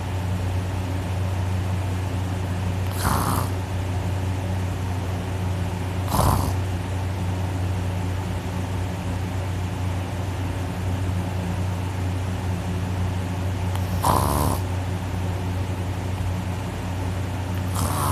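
A person snoring in deep sleep with the mouth held wide open and the nose pinched shut: short, harsh rasping snorts come every few seconds, four in all, over a steady low drone. The uploader felt the soft palate vibrating hard.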